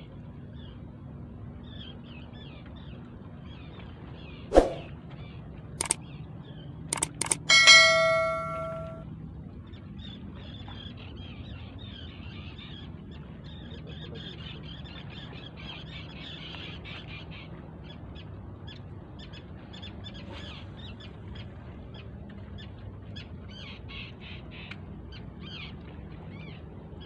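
Birds calling over the water with many short, high chirps and calls throughout, above a low steady background hum. A few sharp clicks come between about four and seven seconds in, then a loud metallic clang near eight seconds rings for about a second and fades.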